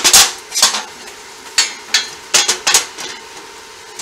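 Irregular metal knocks and clanks, about seven, as steel parts are handled and knocked about on a steel welding table, each with a short ring.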